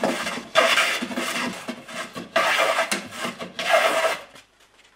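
A larch shingle's narrow edge is pushed along a long upside-down jointer plane in three strokes, each a scraping hiss as a shaving is cut. This is the jointing of the edge, which makes it straight so the shingles close tightly without gaps.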